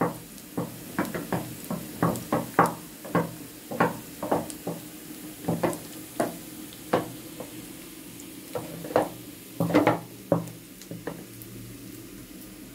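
A run of irregular light knocks and taps, several a second at times, over a steady low hum; they thin out and stop about eleven seconds in.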